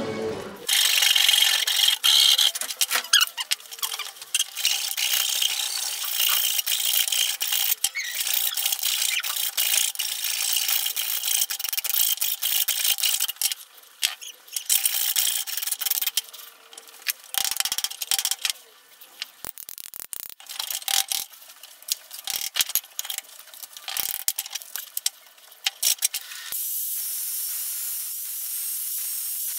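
Wooden hammer handle being sanded with an abrasive disc on an angle grinder, a loud rough scraping that comes and goes with many short breaks. Near the end it settles into a steadier hiss.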